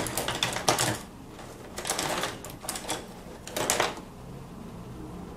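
A loose pile of paintbrushes being rummaged through by hand, the handles clattering and clicking against each other and the tabletop. It comes in short spells of rattling, strongest in the first second, and dies away after about four seconds.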